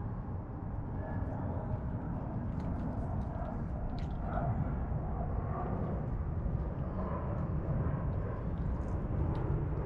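Steady low outdoor background rumble, with faint irregular crunching clicks of cats chewing dry kibble.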